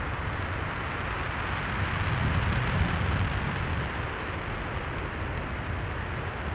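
RS-25 liquid-hydrogen/liquid-oxygen rocket engine firing at full run on a test stand: a steady, unbroken deep rumble with a dense hiss over it.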